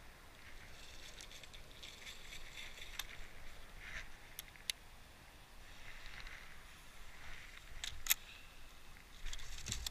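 Faint swishing and handling noise from fishing tackle as a swim jig is cast and reeled in quickly, with a few sharp clicks.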